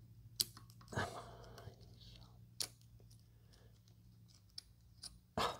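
A few faint, sharp clicks of a steel pick and timing chain against the cam sprocket on a small four-stroke ATV engine as the chain is held and the sprocket lined up.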